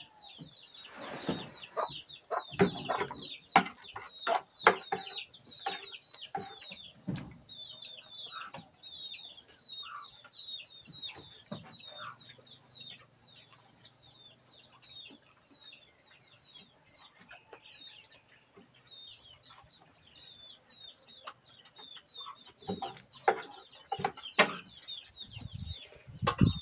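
Birds chirping over and over in short high calls, with clucking among them. Knocks and clinks of eating at a table come in clusters in the first few seconds and again near the end.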